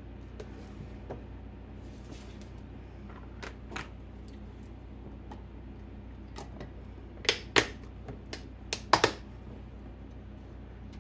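Lids being pressed onto freezer-meal food containers and the containers shifted about on a counter: scattered sharp clicks and knocks, the loudest in a quick cluster in the second half.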